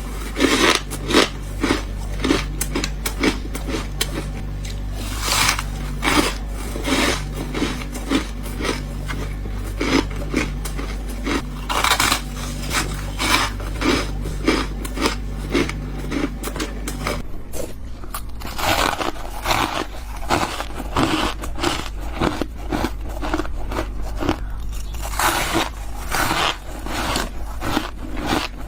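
Freezer frost being bitten close up: one crisp crunchy bite after another, several a second, with no pauses.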